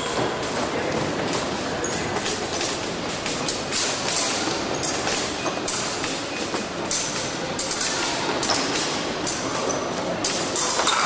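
Fencing hall din during an épée bout: a steady wash of noise with many short, sharp metallic clicks and clinks from blades, and thumps from footwork.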